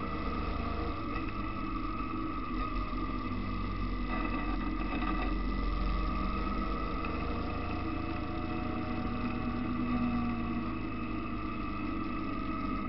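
Motorcycle engine running at speed while riding, its pitch rising and falling gently, over a steady low wind rumble on the microphone.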